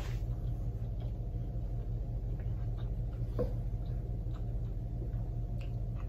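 A steady low hum with a few faint mouth clicks from someone chewing food.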